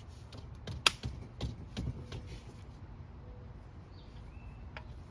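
Hand tools and metal parts clinking during work on a small-block Chevy engine: one sharp click about a second in, then a few lighter knocks and scattered clicks.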